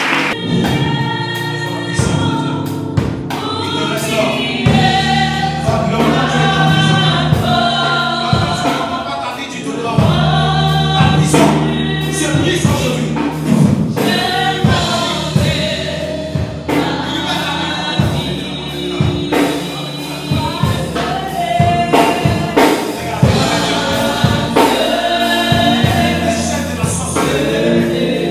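Gospel music: a choir singing over instrumental backing with a steady drum beat.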